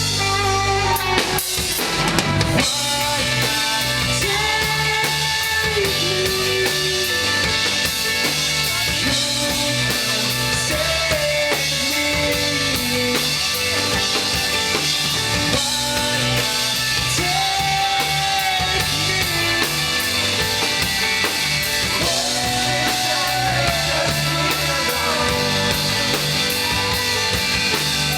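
Instrumental break of a band's song: a drum kit with bass drum and snare keeps a steady beat under a melodic lead line.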